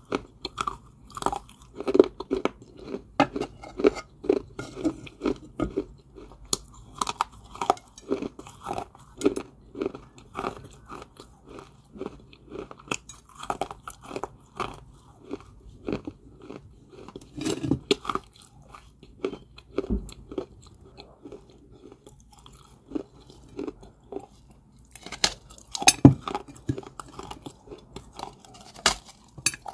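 Dry white clay balls (Georgia White kaolin) being bitten and chewed, an irregular run of sharp crunches. The crunching thins out about two-thirds of the way in, then picks up again with a few louder crunches near the end.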